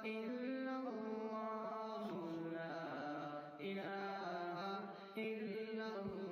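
Background vocal chanting: a single melodic voice holding long, slowly sliding notes, with short breaks between phrases.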